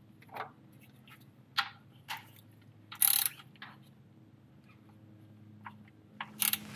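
Hand ratchet clicking in short, scattered bursts as an oil drain plug is snugged down, with a louder, longer burst about three seconds in.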